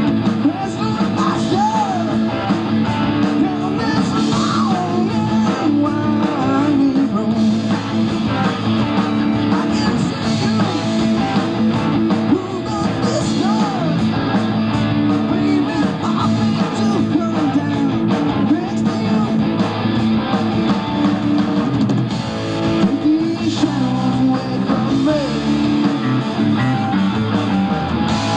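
Live rock band playing a song through amplifiers: electric guitars, bass guitar and a drum kit, continuous and loud.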